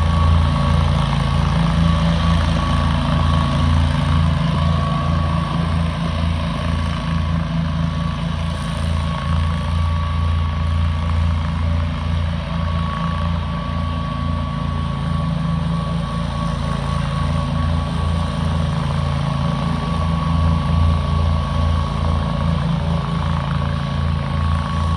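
Dixie Chopper zero-turn mower engine running steadily with a low pulsing hum, and a thin steady high whine over it.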